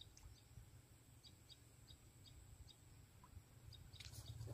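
Near silence: faint high chirps from a small animal, repeating evenly about three times a second over a low rumble, with a brief rustle about four seconds in.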